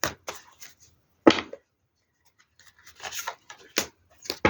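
Deck of cards being handled: short, dry rustles and slaps as they are shuffled and set down on a table, the loudest slap about a second in and a cluster of rustles around three seconds in.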